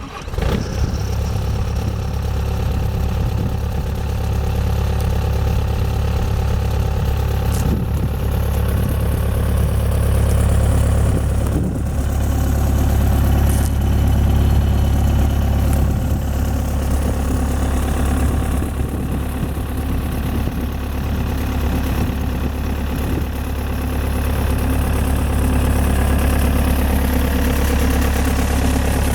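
Bobcat S185 skid steer loader's diesel engine running steadily at idle, with a strong low hum.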